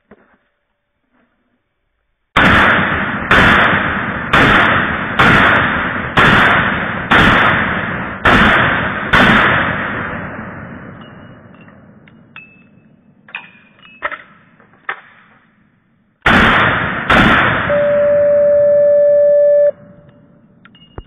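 Glock 19 9 mm pistol shots slowed to quarter speed: about eight shots roughly a second apart, each a deep boom with a long fading tail. Two more shots follow later, then a steady beep lasting about two seconds.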